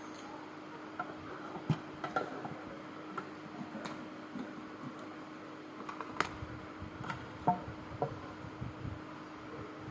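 Scattered light clicks and knocks of parts of a Premier Easy Grinder being handled, over a steady low hum.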